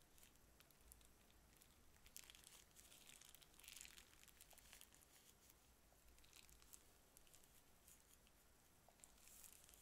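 Faint crinkling and rustling of a plastic piping bag being squeezed and twisted, with soft squishes as thick white slime is pressed out. The rustling grows louder about two to four seconds in and again near the end.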